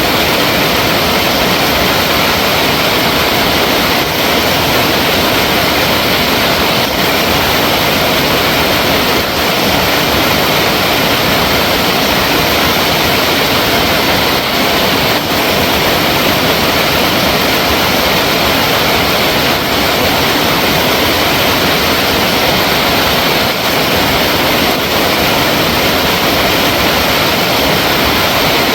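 Flowing water rushing steadily, a dense even noise with no breaks or separate splashes, like a waterfall or fast stream.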